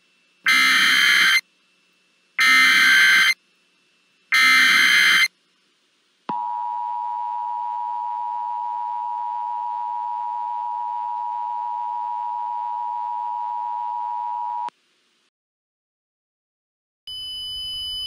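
Emergency Alert System tones: three one-second bursts of SAME header data with short gaps between them, then the two-tone EAS attention signal held steady for about eight seconds before it cuts off.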